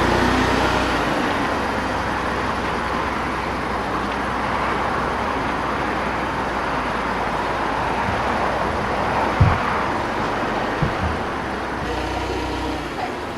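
Steady road traffic noise, vehicles passing, with two brief knocks near the end.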